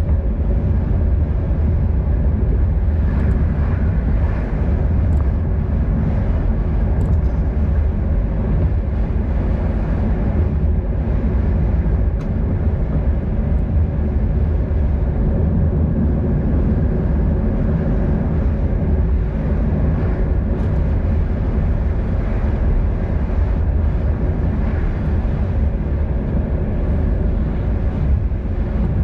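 Steady low wind rumble on the microphone of a camera carried on a moving bicycle.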